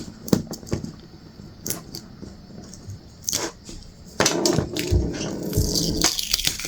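Thin protective plastic film being picked and peeled off a hard acrylic ornament in small pieces: scattered crinkles and small clicks, busier and louder over the last couple of seconds, with a couple of low handling thumps.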